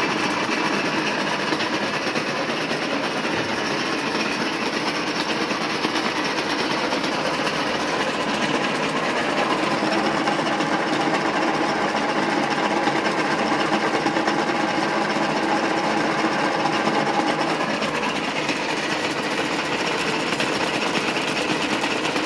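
676P milling machine running, its vertical milling head driving an end mill that cuts steel in a steady, even noise. The head's gearing is noisy with distinct separate knocks, which the owner suspects come from worn gears.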